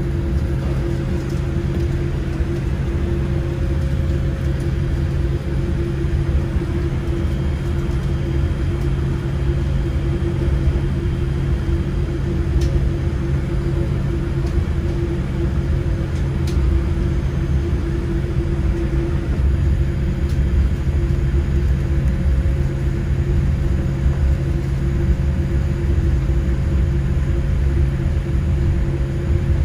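Steady cabin noise inside a Boeing 787-8 airliner: a constant low rumble with a steady hum, running evenly without rising or falling.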